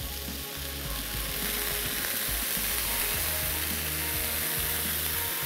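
Chicken pieces with onion and green chillies frying in a very hot pan, sizzling louder about a second in as soy sauce is poured onto them.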